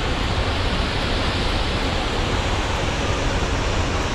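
Steady rush of falling water from Athirappilly waterfall, heard close to the falls.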